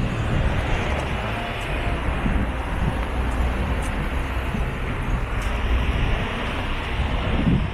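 Street traffic: car engines running and tyres on the road as cars pass close by, a steady low rumble under a wash of road noise.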